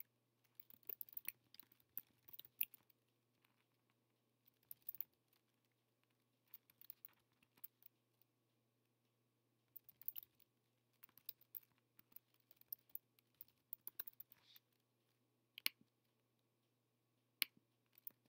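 Faint typing on a computer keyboard, in short runs of keystrokes with pauses between them, then two sharper single clicks near the end.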